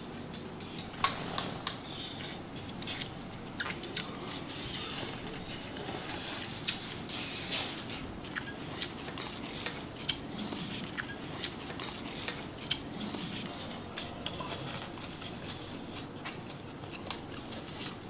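Irregular clinks, ticks and scrapes of utensils, with wet food sounds, as a large tray of spicy glass-noodle seafood salad is worked.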